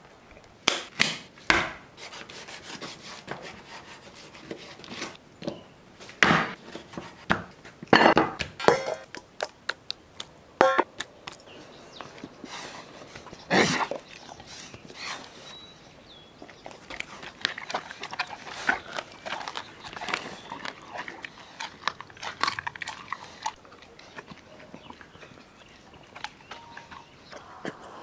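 Weimaraner eating raw meat from a stainless steel bowl: irregular sharp crunches, clicks and knocks of chewing and of the metal bowl, with louder clusters every few seconds.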